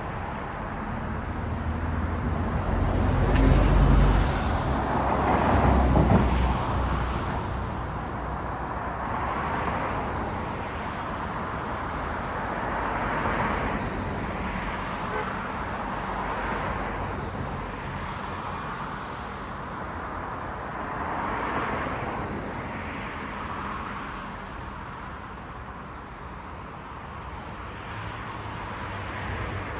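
City road traffic: cars passing one after another with a steady tyre and engine hiss, the loudest two passes, with a deep rumble, coming about three and six seconds in.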